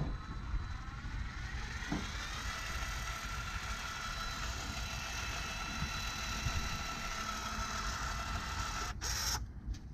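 Cordless electric caulking gun motor whining steadily as it pushes windshield adhesive out of the cartridge. The pitch rises over the first couple of seconds, holds steady, then the motor stops abruptly about nine seconds in, with a short hiss as it stops.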